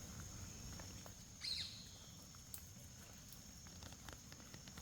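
Quiet forest ambience: a steady, high insect trill, with a short chirp about a second and a half in and a few soft clicks and rustles.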